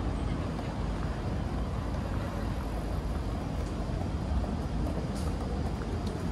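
Steady low rumble of city street traffic, with a few faint ticks in the second half.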